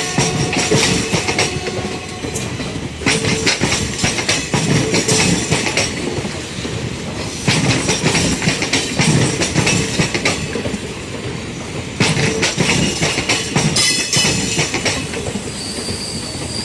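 Passenger train's wheels clattering over the rail joints, with loud bursts of clatter returning every few seconds over a steady rolling rumble.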